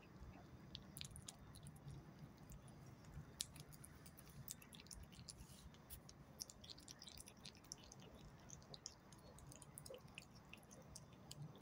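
A cat chewing a piece of steak: faint, irregular wet clicks and smacks of its jaws and tongue.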